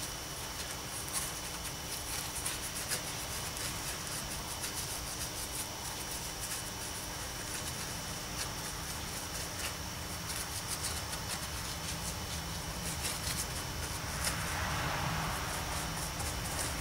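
Paintbrush dabbing and scrubbing paint into cast rock molds, heard as faint irregular scratchy ticks over a steady hum. A louder rustle comes near the end.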